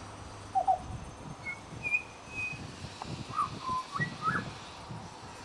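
Pied butcherbird singing a string of short, clear whistled notes, some gliding up or down, in loose groups with gaps between them.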